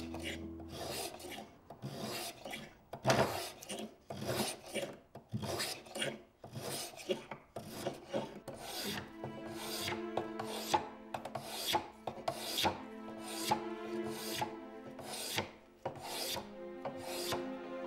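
Metal spokeshave shaving a wooden pipe stem in quick repeated strokes, roughly two a second, each a short scraping cut. Soft orchestral music plays underneath.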